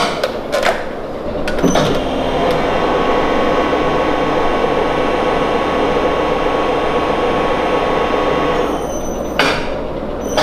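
Powered tube bender running steadily for about seven seconds as it bends a 1-inch steel tube, with a held hum. A few clicks and clunks come just before it starts, and a clunk as it stops.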